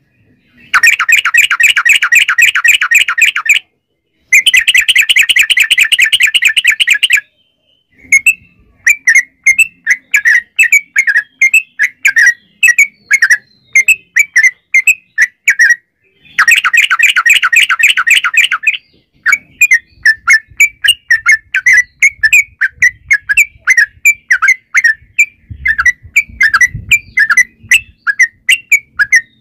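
Yellow-vented bulbul (trucukan) singing: three loud, rapid chattering trills of about three seconds each, two near the start and one about halfway, with runs of separate sharp chirps, about three or four a second, in between.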